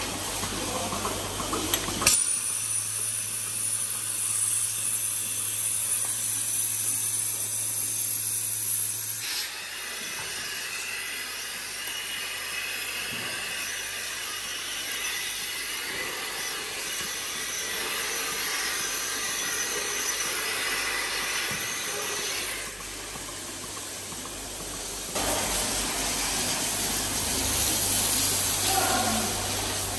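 Milking-parlour machinery: a steady hiss with a low hum underneath, from the milking system's vacuum line and clusters at work. The level and hum shift abruptly a few times.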